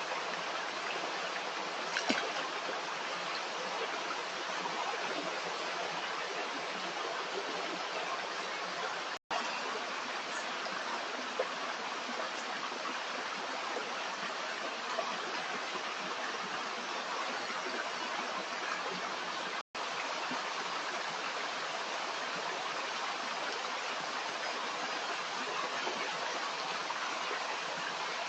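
Stream water running and splashing steadily, as an even rushing noise. The sound drops out for an instant twice, about nine and twenty seconds in.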